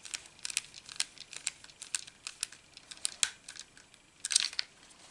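Irregular small plastic clicks and taps as the parts of an Xbox Elite controller's casing are handled and fitted back together, with a louder cluster of clicks about four seconds in.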